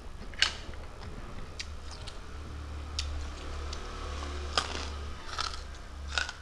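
Close-miked eating sounds: a few scattered short clicks and smacks from the mouth and hand as a fried soya chunk is picked up and chewed, over a steady low electrical hum.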